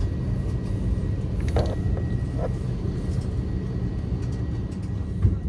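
Steady low rumble of a jet airliner's cabin before takeoff: engines and air system running. A few faint knocks come through, with a sharper thump near the end.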